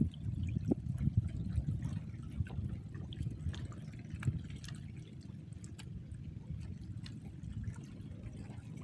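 Water splashing and trickling, with many small scattered clicks and drips over a steady low rumble.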